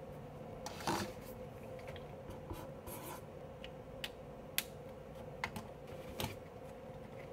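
Desk sounds while studying: scattered light clicks and taps with short scratchy rustles of pen and paper, the loudest rustle about a second in. A steady faint hum runs underneath.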